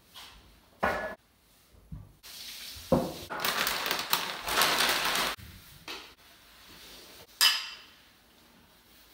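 Soda poured from a bottle into a small glass, fizzing and splashing for about three seconds. A short knock comes about a second in, and a sharp clink near the end.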